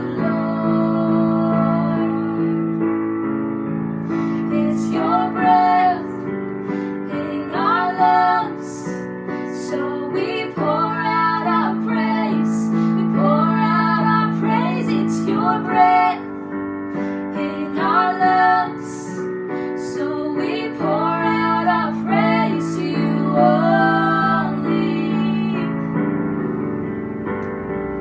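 A woman singing with piano accompaniment: sustained piano chords under phrases of a sung melody.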